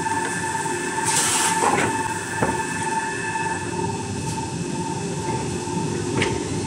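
Paper towel rewinding line running at a steady speed: a constant machine din with a steady whine, a few sharp clicks and knocks, and a short hiss about a second in.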